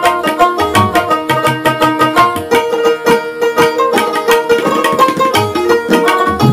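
Background instrumental folk music: a dotara plucked in quick notes over a hand-drum rhythm.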